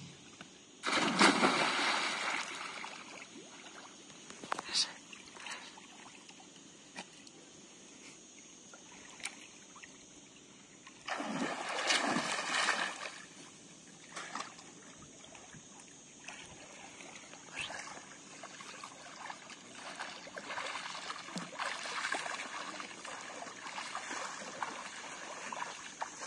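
A loud splash as a person jumps into a swimming pool about a second in, another loud splash around twelve seconds in, then the uneven slosh and splash of water as he swims.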